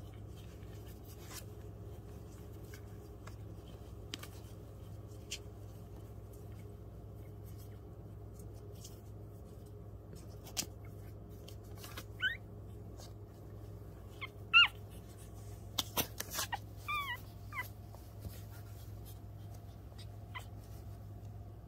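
Newborn Pomeranian puppies squeaking and whimpering while nursing: a few short, high squeaks from about halfway through, over a steady low hum and faint clicks.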